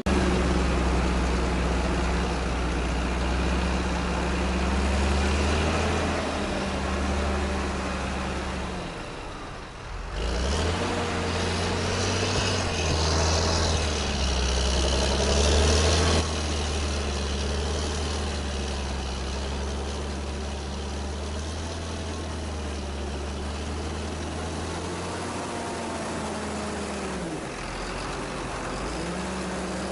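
Engine running steadily, dipping briefly about nine seconds in, louder with added hiss for a few seconds after, and its pitch sagging and recovering a couple of times.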